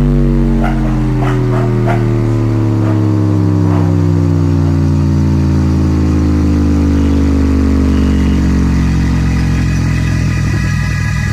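Double 12-inch loudspeakers playing back a loud, deep droning tone that slowly falls in pitch, with a few sharp clicks in the first few seconds.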